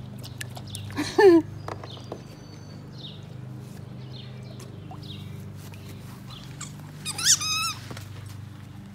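A dog whining in two short high-pitched squeals, one about a second in that falls in pitch and a wavering one around seven seconds, over a steady low hum.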